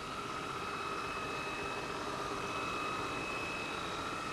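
Small electric motor and propeller whining steadily at a high pitch that wavers slightly, over a hiss of background noise.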